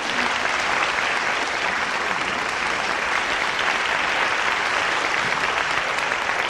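Applause from an audience: a steady, even clatter of many hands clapping, from a film's soundtrack.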